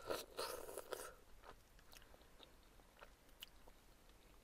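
A person slurping ramen noodles in the first second or so, then chewing quietly with a few faint mouth clicks.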